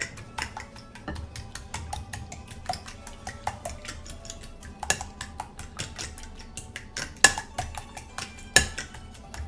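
Fork beating eggs in a bowl: a quick, steady clatter of the tines against the bowl, with a few louder knocks about five, seven and eight and a half seconds in. Background music plays underneath.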